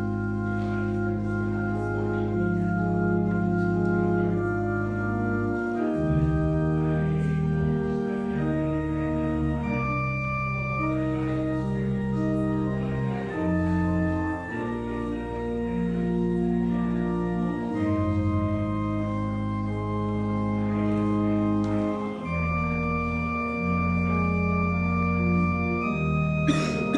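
Organ playing slow, sustained chords over held bass notes, the chords changing every second or two, with a brief knock near the end.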